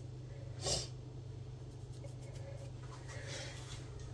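A short sniff about a second in, then a faint breath near the end, over a steady low electrical hum.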